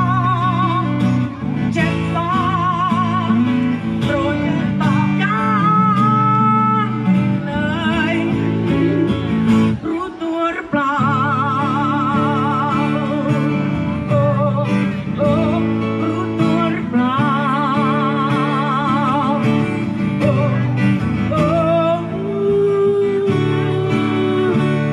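Acoustic guitars strumming chords under a sung melody with long, wavering held notes. The music breaks off briefly about ten seconds in, then carries on.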